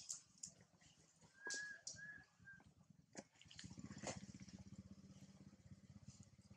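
Faint rustling and a few clicks, with three short high chirps about a second and a half to two and a half seconds in. From a little past halfway comes the low, even pulse of an engine running faintly.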